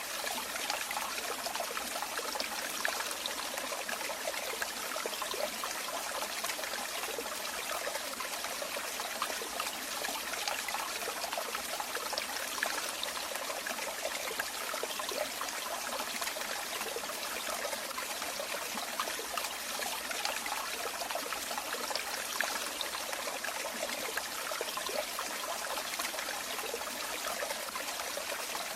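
Water running and trickling in a steady, unbroken stream, with a busy babble of small splashes and no deep rumble.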